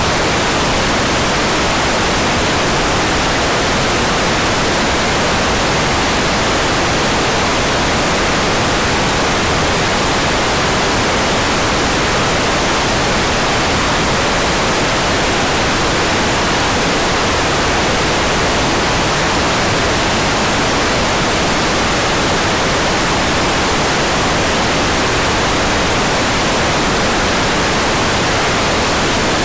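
Hairdryer blowing steadily: a constant, even rushing hiss that does not change.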